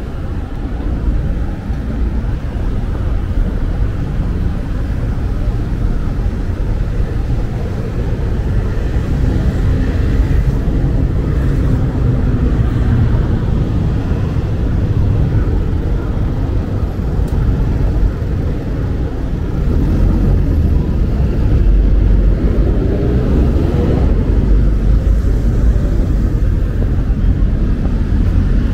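City street traffic: a steady low rumble of passing cars that grows gradually louder toward the end.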